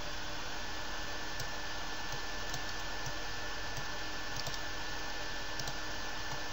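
Steady microphone hiss with a faint high steady tone, and a few faint, scattered clicks from a computer keyboard and mouse.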